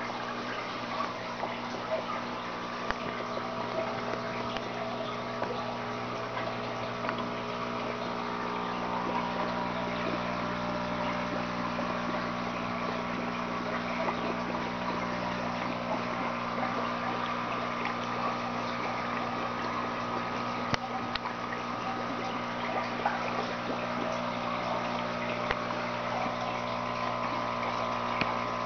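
Water pump of a hydroponic grow system running with a steady hum, with water trickling and splashing through the tray. It gets slightly louder about eight seconds in.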